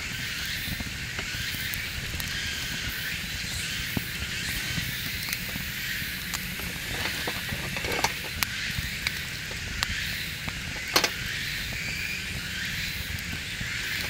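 Wood campfire burning with a steady crackle and hiss over a low rumble, broken by a few sharp snaps, the loudest about eleven seconds in.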